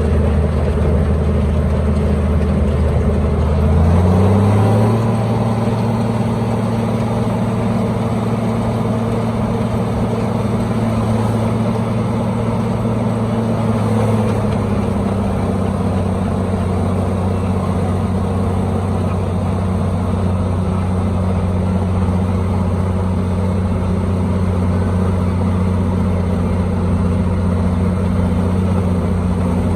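Engine of road-repair machinery running steadily, its revs rising about four seconds in and easing down slightly around fourteen seconds, then holding steady.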